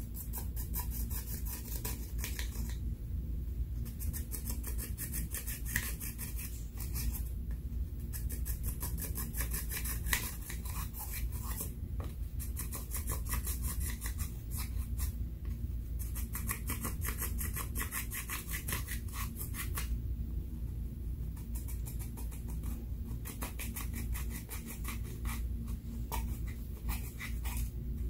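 A metal-tipped dotting tool scraping and crumbling pressed eyeshadow powder in its palette pans. Runs of fast, scratchy strokes, several a second, break off in short pauses every few seconds, over a steady low hum.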